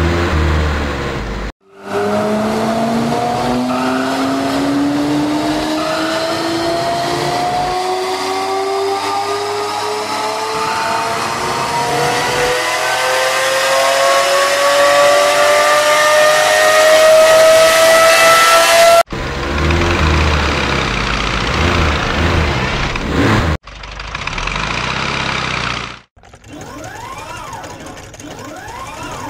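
Sports car engine sound effect accelerating, its pitch climbing steadily for about seventeen seconds before cutting off suddenly. After that come a few shorter stretches of other machine noise, and near the end a quieter whirring with repeated rising and falling sweeps.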